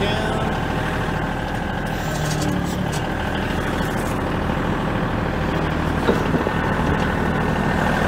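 Kioti compact tractor's diesel engine idling steadily, with two brief knocks about six seconds in.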